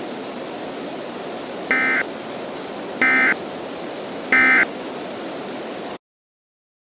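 Three short warbling data bursts of EAS/SAME tones, about a second apart, over steady weather-radio static hiss: the end-of-message signal that closes a NOAA Weather Radio alert. The hiss and all sound cut off abruptly near the end.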